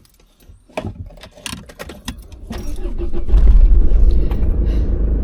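Keys jangling and clicks, then the camper van's engine starts about three seconds in and runs on with a steady low rumble.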